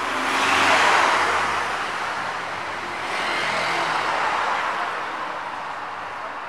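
Road traffic passing in a city street: two swells of rushing vehicle noise, the first about a second in and the second around three to four seconds in, fading toward the end.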